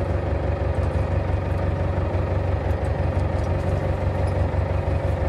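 Fishing boat's engine idling: a steady low drone with a fainter steady hum above it.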